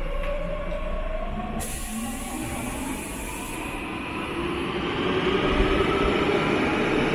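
Seoul Metro Line 9 subway train with its motors whining. The tones rise steadily in pitch from about halfway through, as a train pulling away would. A high hiss lasts about two seconds near the middle.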